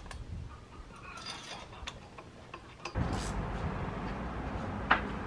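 Ratchet wrench clicking in short runs while bolts on a pit bike engine's cylinder head are tightened. About three seconds in, a steady low hum comes in behind it, and a single sharp click comes near the end.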